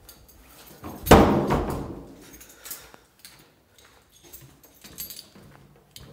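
A heavy wooden door banging shut about a second in, the thud dying away over about a second, followed by a few faint clicks and knocks.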